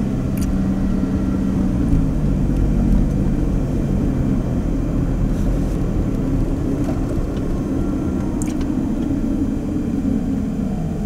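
Car engine and road noise heard from inside the cabin while driving, a steady low drone whose engine note drops a little a few seconds in.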